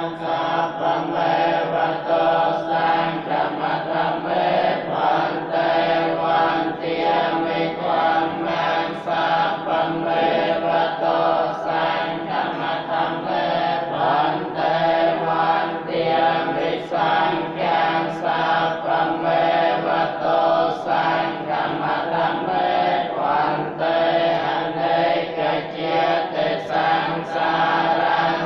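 Theravada Buddhist monks chanting together in unison, a steady recitation of many voices that runs without a break.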